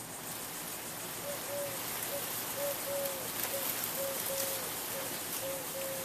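Several ceiling fans running, led by a 1979 Casablanca Columbia II, their blades making a steady airy hiss. From about a second in, a short mid-pitched note repeats roughly twice a second over the hiss.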